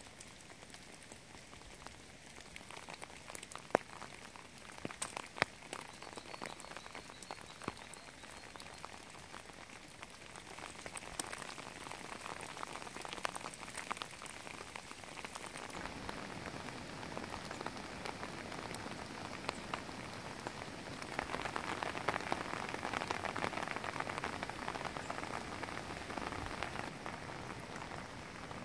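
Steady rain falling on shrubs and leaves, with sharp drops landing among the steady hiss. It grows heavier past the middle, loudest about three quarters of the way through.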